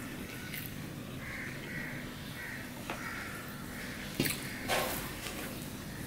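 Crows cawing repeatedly in the background while fingers squish and mix rice and curry on a steel plate, with a few sharp clicks and a louder scrape about four seconds in.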